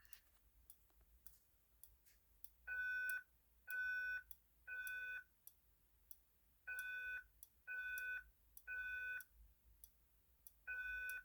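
Fire alarm speaker strobe sounding its alarm tone, set to the loud tone, in the temporal-three evacuation pattern. The pattern is three half-second beeps about a second apart, a pause, then three more. It starts a few seconds in, after a few faint clicks.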